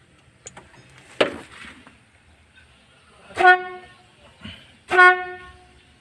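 24-volt electric trumpet horn, wired through a newly fitted 4-pin relay, sounding two short steady blasts about a second and a half apart: the horn now works on the relay. A single knock comes about a second in.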